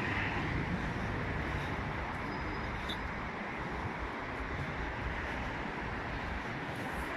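Steady city street traffic noise: a continuous low rumble with a hiss over it.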